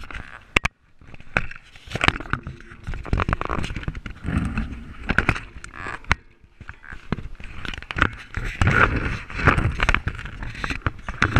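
Camera handling noise: irregular scraping, rubbing and knocks close to the microphone as the camera is moved about and set low.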